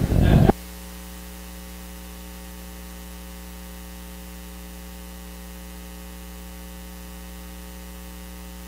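Steady electrical mains hum with hiss, an even ladder of level hum tones, after a short loud noise in the first half-second that cuts off suddenly.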